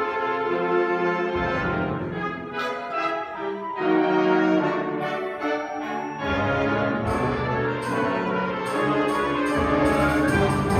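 School concert band playing a wind-band piece, the brass to the fore in sustained chords. Deep low notes come in about a second in and again just past the middle.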